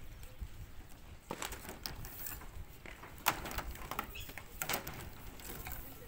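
Plastic electrical conduit being handled and fitted together by hand: irregular scrapes and clicks of the pipe against the bend fittings.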